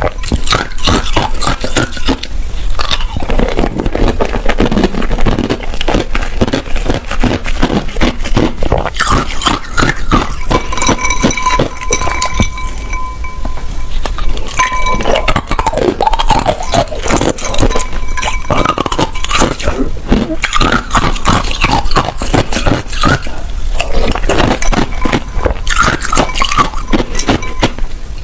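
Hard, clear ice cubes being bitten and chewed close to the microphone: dense, rapid cracking and crunching, with a metal spoon now and then clinking against a glass bowl of ice.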